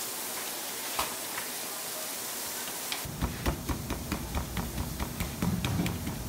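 A steady hiss, then, from about three seconds in, a quick run of soft pats and taps as gloved fingers press and flatten a ball of pizza dough on a floured stainless-steel counter.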